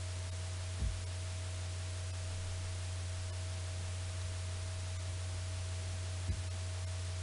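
Steady low electrical hum with a thin higher steady tone and hiss in the background of a voice recording, broken by two soft low thumps, about a second in and again about six seconds in.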